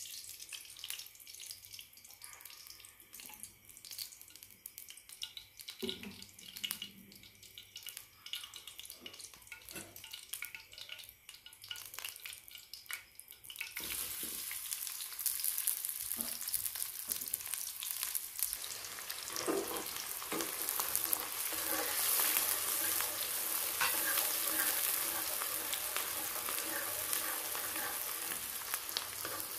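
Hot cooking oil in a karahi giving off scattered light crackles. About halfway through, sliced onions drop in and a loud, steady frying sizzle takes over as a metal spoon stirs them.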